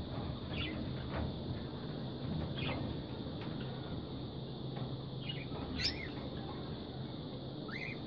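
Parakeets giving a few short, high chirps spaced a couple of seconds apart, the sharpest about six seconds in, over a steady low background noise.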